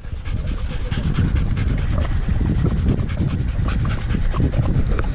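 A dog panting rapidly, close up, in quick repeated breaths.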